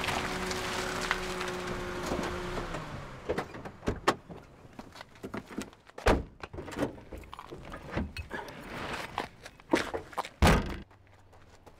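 A sedan's engine running steadily, then shutting off about three seconds in, followed by a car door opening and slamming, quick footsteps and knocks, and a trunk lid thudding shut near the end.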